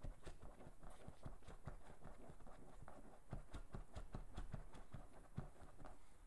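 A dog's claws scratching rapidly at an upholstered chair, a quick run of strokes, several a second, that stops near the end.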